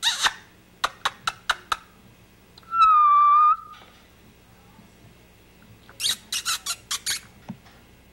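A person calling a cat with runs of quick mouth clicks. About three seconds in comes one short, steady, even-pitched whistle, the loudest sound, and another run of clicks follows near the end.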